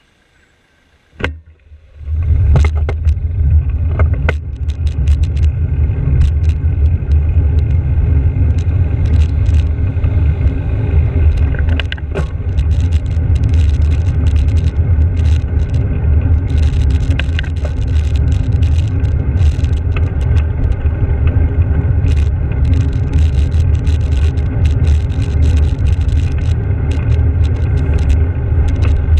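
Wind buffeting the microphone of a handlebar-mounted GoPro, with tyre rumble, as a bicycle moves off at about two seconds and rides along a road. Frequent small rattles and clicks run through it, and there is a single click about a second in, before it moves off.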